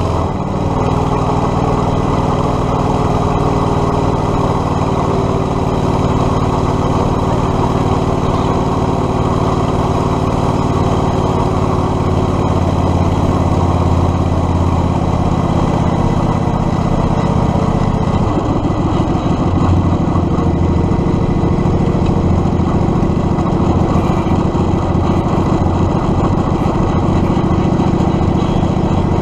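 Predator 670cc V-twin engine on a Yerf Dog 3203 go-kart running steadily under way. The engine note changes about 18 seconds in.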